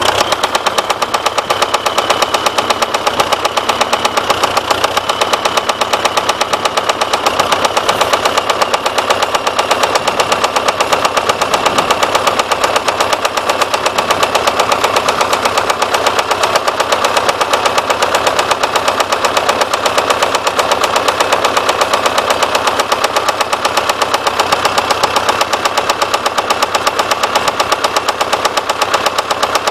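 DT-75M crawler tractor's SMD-18 diesel engine running steadily with a rhythmic knock. The owner suspects a connecting-rod fault, either the big-end bearing or the small end at the piston pin.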